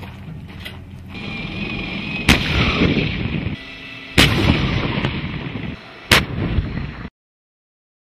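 Tank main gun firing three times, about two seconds apart: each shot a sharp crack followed by a long rumbling echo. The sound cuts off abruptly near the end.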